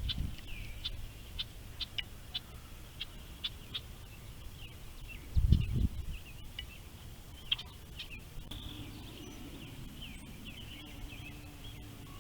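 Wild birds chirping, with a run of short high notes repeating about twice a second and then more scattered calls. There is a dull low bump about five and a half seconds in, and a faint steady low hum comes in after about eight seconds.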